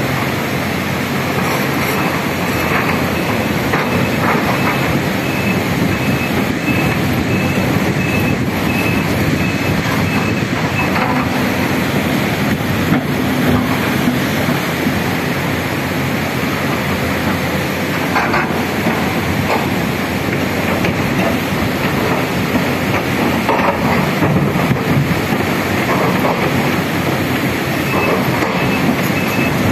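Steady, loud rushing noise of a fast, muddy river with a working tracked excavator's engine, and a faint beeping alarm that comes and goes as the excavator travels.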